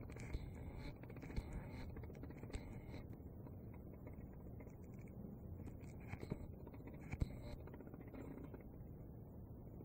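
Faint low background noise with scattered soft clicks and a few brief rustling hisses.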